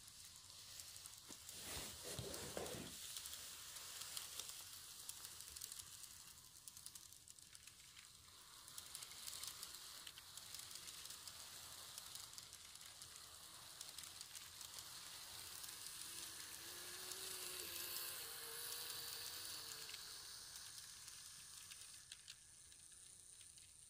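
Model electric train running along sectional track: a faint, steady high hiss of wheels and motor peppered with small clicks. It swells as the train nears, and a faint wavering hum joins it about three-quarters of the way through.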